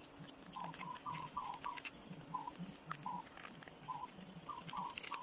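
Paper crinkling and crackling in short bursts as a sheet is creased and shaped into an origami boat by hand. A short note repeats irregularly in the background, one to three times a second.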